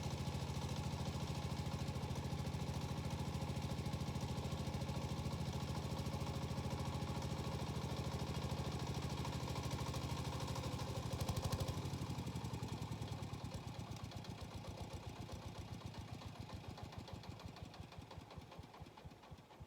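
Small Yanmar diesel engine of a walk-behind tiller running steadily at idle, then shut off about twelve seconds in. It thuds more and more slowly as it winds down to a stop.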